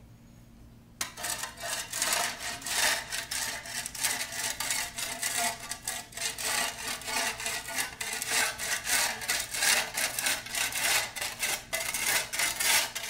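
Flat shovel's blade scraping along the edge of a concrete driveway in quick repeated strokes, cutting back the grass to edge the lawn. The scraping starts about a second in.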